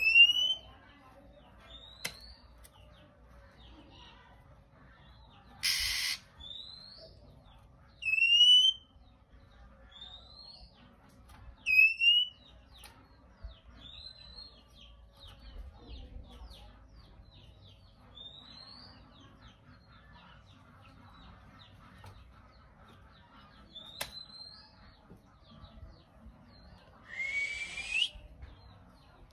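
Male oriental magpie-robin giving short rising whistled calls every two seconds or so, with a harsh rasping hiss about six seconds in and another, longer rasp near the end.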